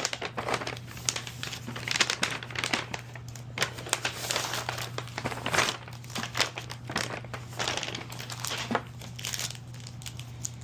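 Tear-strip mailer package being torn open and its packaging crinkled and rustled by hand in irregular bursts, over a steady low hum.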